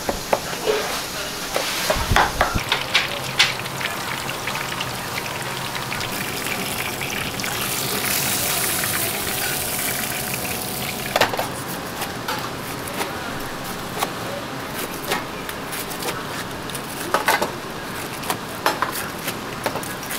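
Breaded pork cutlets deep-frying in hot oil, a steady sizzle that swells for a few seconds midway. Sharp knife knocks and crunches break in, a cluster in the first few seconds and more near the end as a knife cuts through a crisp fried cutlet on a wooden board.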